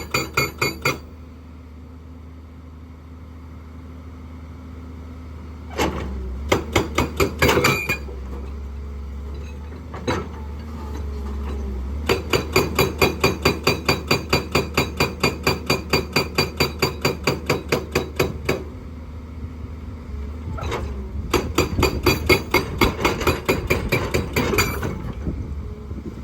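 Hydraulic rock breaker on a JCB excavator hammering rock in bursts of rapid blows, about four or five a second, with the excavator's diesel engine running steadily between bursts. The hammering stops briefly at the start, comes back around six seconds in, runs longest in the middle, and comes again near the end.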